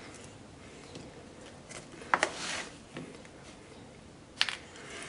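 Faint clicks and rustle of a small screwdriver and folding knife being handled, then one sharp metallic click about four seconds in as a small handle screw is dropped into a metal tin.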